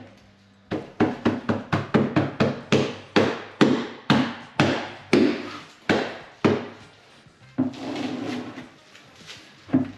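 A hand slapping a Wedi foam backer board flat against the wall, a quick run of about four slaps a second, bedding the board onto dot-and-dab adhesive. The slapping stops about two-thirds of the way through.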